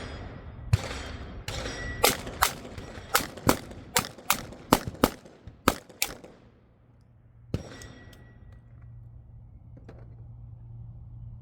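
Rapid gunfire in quick pairs: two single shots, then five doubles each about a third of a second apart, with short gaps between pairs as the gun moves from target to target. A last single shot follows after a pause of about a second and a half. A steady low hum sets in near the end.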